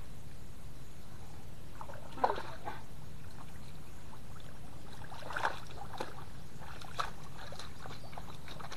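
Muddy water sloshing and splashing as a man wades and gropes with his hands in a shallow mud pool, with a few sharper splashes about two seconds in, around five and a half seconds, and at seven seconds, over a steady low background noise.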